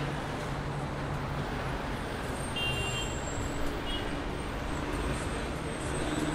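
Busy city road traffic: a steady rumble of engines and tyres, with a couple of short, high horn beeps about halfway through.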